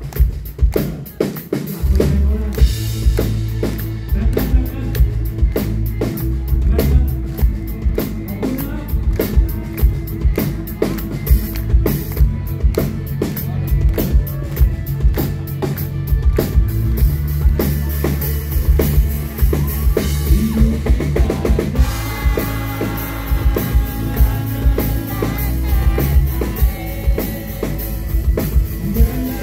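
Live rock band playing an instrumental passage: drum kit with steady kick and snare hits under electric guitar and a heavy low end. The full band comes in about two seconds in.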